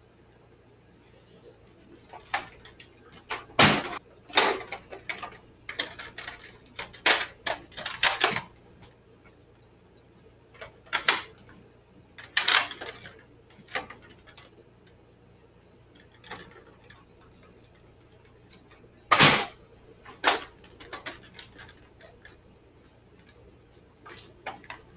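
Irregular plastic clicks, clacks and knocks as a Nerf blaster is handled and its snap-on barrel extension and stock attachments are fitted and removed, with two sharper knocks about three and a half seconds in and about nineteen seconds in.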